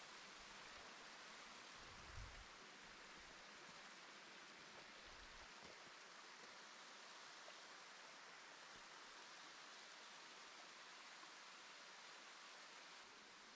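Faint, steady hiss of a small waterfall, water trickling down a bare rock face. A soft low thump about two seconds in.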